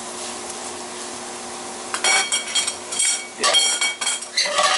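Steak strips sizzling in a stainless steel skillet. About two seconds in, a metal utensil starts scraping and clinking against the pan as the meat is stirred and turned, with short ringing metallic tones.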